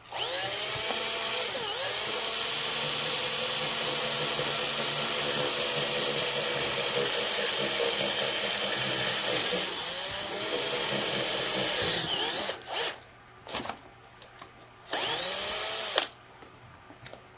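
Power drill running under the trigger for about twelve seconds, its motor pitch rising as it speeds up at the start and again briefly near ten seconds. Then it stops and gives two short blips and one longer burst of a second or so.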